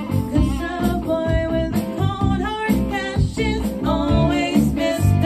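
A woman singing live into a microphone with a full band, drums and bass loud beneath her voice.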